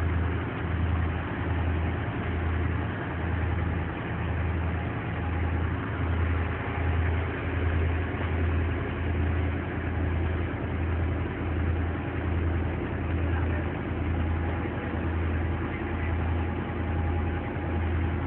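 Fishing boat's engine running steadily: a low drone that throbs about once a second.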